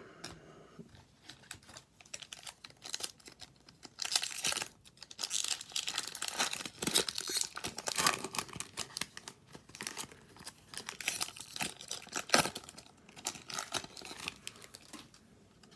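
A hockey card pack's wrapper being torn open and crinkled. A few light rustles come first, then dense crackling from about four seconds in, with one sharper snap near the end.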